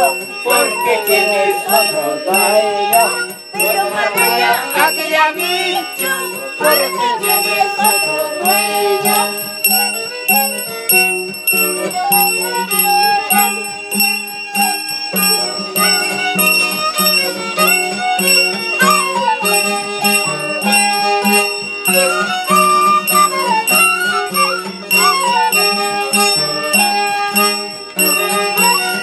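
Andean carnival folk music played live: violin and acoustic guitar with a small hand bell ringing in a steady rhythm. Voices sing over it during the first several seconds.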